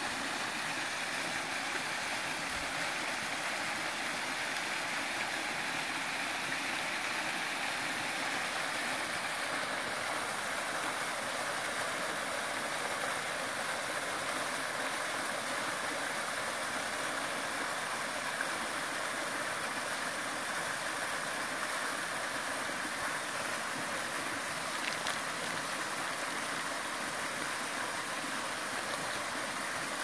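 Waterfall cascading over rock: a steady, unbroken rush of falling water.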